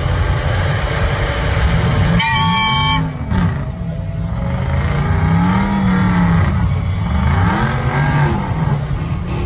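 Engines of two off-road trucks, a six-wheel drive and a four-wheel drive, revving hard in a tug-of-war pull against each other, the revs rising and falling over and over as the tires spin in the sand. A short horn blast sounds about two seconds in.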